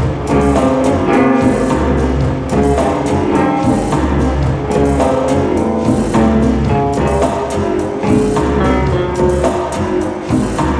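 Live one-man-band music: electric guitar played over a steady beat of kick drum and quick jingling or ticking percussion, all from one performer.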